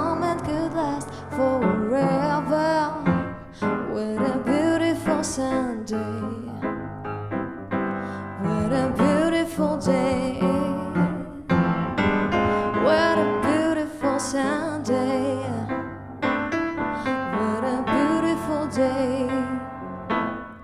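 A woman singing a slow pop song with upright piano accompaniment, her voice gliding and bending in pitch over the piano chords.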